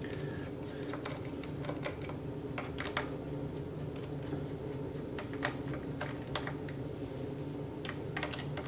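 Irregular light clicks and taps of hand work on a laptop's plastic underside: screws being backed out and small plastic covers worked off. A steady low hum runs underneath.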